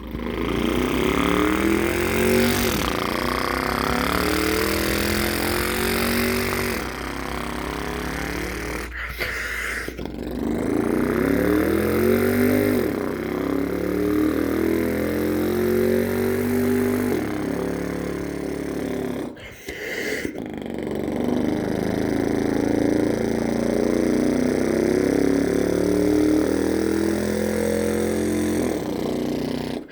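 A person imitating a V8 engine with their voice: a buzzing, pitched rumble that rises again and again like revs, with short breaks about nine and nineteen seconds in.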